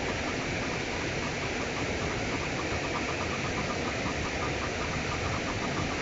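Steady rush of river water pouring over a low weir.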